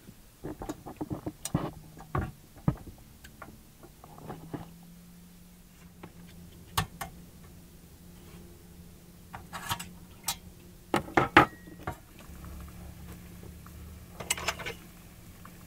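A stainless steel pot being handled on the wire trivet of an electric hot plate: a series of metal clinks and knocks, loudest about eleven seconds in, with a faint steady hum underneath.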